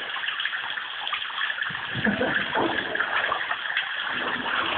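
Water running and sloshing in a drainage culvert, a steady rush with some louder sloshing about two seconds in.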